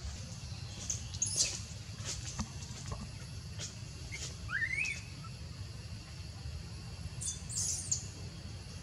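Outdoor ambience of scattered short high bird chirps and a few faint clicks over a steady low rumble. A brief rising squeak comes about halfway through.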